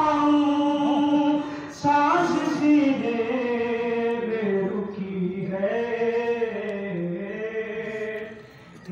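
A young man chanting a noha, an Urdu mourning elegy, solo into a microphone, drawing out long held notes with no instruments. His voice briefly breaks off about two seconds in and falls away near the end.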